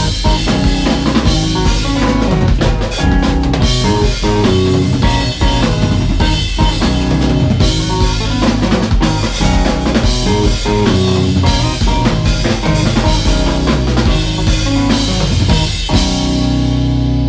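Live math-rock band playing electric guitar and drum kit, busy drumming with snare, rimshots and kick under interlocking guitar lines. About sixteen seconds in the drums stop and a held chord is left ringing.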